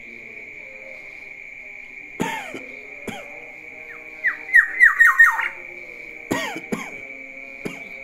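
Black-naped oriole calling: harsh calls about two and three seconds in, then a quick, loud run of about six downward-sliding whistled notes near the middle, and more harsh calls near the end. A steady high-pitched tone runs underneath.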